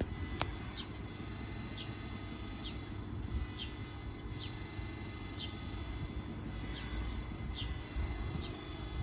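A small bird calling over and over, short high chirps that fall in pitch, about once a second, over a steady low rumble. A single sharp click sounds near the start.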